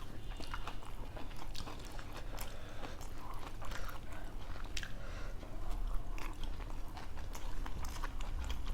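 People chewing and biting food close to the microphone, with many small irregular clicks and crunches.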